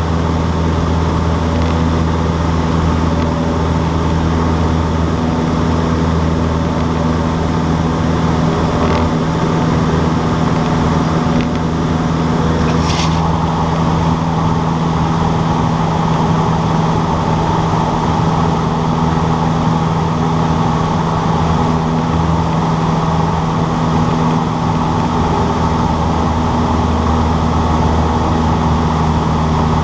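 Cessna 152's four-cylinder piston engine (a Lycoming O-235) running steadily at constant power, a loud even drone, with one brief click about halfway through.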